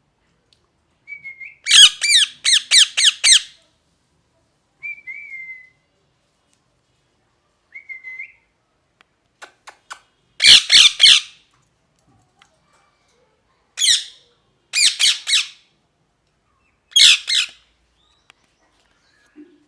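Ringneck parrot calling in loud bouts of rapid harsh screeches, four or five notes at a time, with a few soft short chirps between the bouts.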